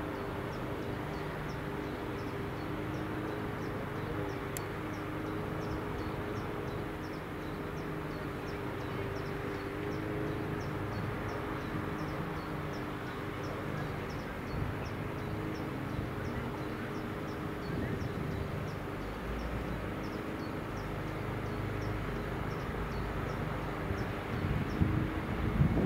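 Siemens Vectron electric locomotive hauling passenger coaches, approaching on curving track: a steady low hum with two even tones, breaking into louder uneven rumbling near the end as it draws close. A faint high-pitched ticking repeats about two to three times a second throughout.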